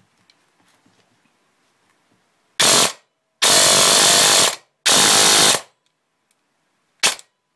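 M4 airsoft electric gun (AEG) with a Version 2 gearbox, dual sector gear and neodymium-magnet motor on an 11.1 V LiPo, firing full-auto bursts: a short burst about two and a half seconds in, a longer one of about a second, another of under a second, and a very brief blip near the end.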